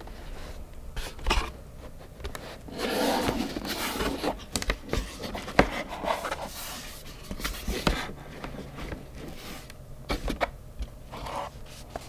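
Cardboard box flaps being opened and paper instruction booklets lifted out by hand: irregular rustling and scraping of card and paper, with a few sharp taps.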